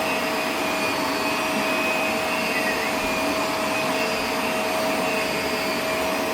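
Vacuum cleaner running steadily, a constant whine over the rush of air.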